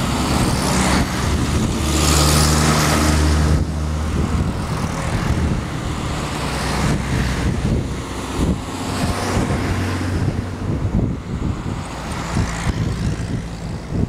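Engines of a convoy of WWII-era military vehicles running as they drive past one after another, with tyre hiss. The loudest stretch, about two to three and a half seconds in, is a large army cargo truck passing close; a jeep and a Dodge weapons carrier follow.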